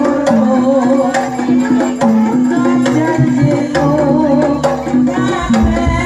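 Live East Javanese jaranan gamelan music: kendang hand drums playing a driving rhythm over sustained low gong-like tones, with a wavering melody line on top.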